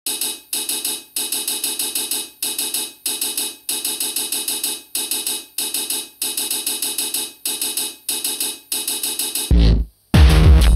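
Electronic dance track intro: a bright, chopped, stuttering synth pattern repeating in short phrases about twice a second. About nine and a half seconds in, a deep falling sweep, a moment of silence, then the full track comes in with heavy bass.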